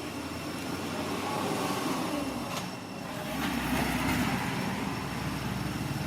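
A motor vehicle running past, its noise swelling twice, with a low engine hum strengthening a little past halfway.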